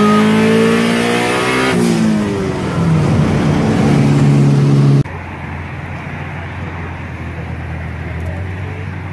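Turbocharged Honda CRX's four-cylinder engine pulling hard under acceleration; the note drops about two seconds in, as at a gear change, then climbs again and holds. About halfway through it cuts off suddenly to a quieter steady low drone.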